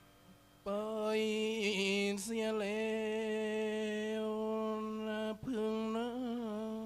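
A nang talung puppet master's male voice singing a long drawn-out line in a chanting style. He holds a steady pitch with slight wavers, starting under a second in and breaking briefly about two seconds in and again about five and a half seconds in.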